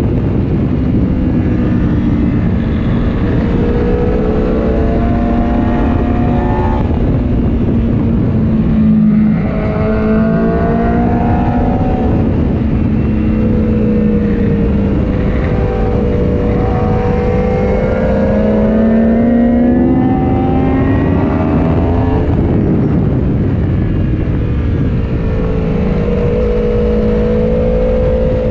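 Aprilia Tuono V4 Factory's V4 engine at racing speed, heard from onboard, revving up through the gears in repeated rising sweeps, each dropping back at a shift before climbing again.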